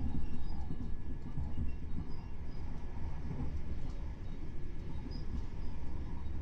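Ride noise heard on board a Southern Class 377 Electrostar electric multiple unit running at speed: a steady low rumble of wheels on rail, with a few faint clicks.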